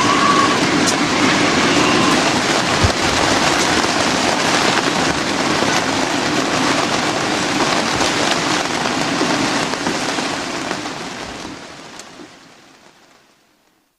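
Heavy rain driven by gale-force wind: a dense, steady downpour with a few sharp drop hits, fading out over the last few seconds.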